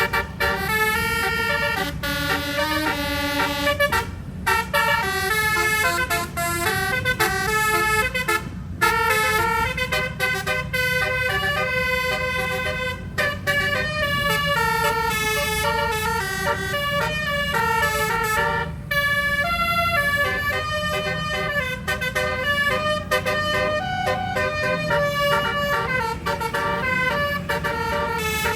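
Bus telolet horn with 12 notes and 24 trumpets, playing a quick tune of short stepped notes, several a second, over low engine and road noise.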